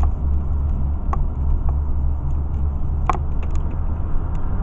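Steady low rumble of a vehicle driving in traffic, heard from inside the cabin, with a few light clicks, the clearest about three seconds in.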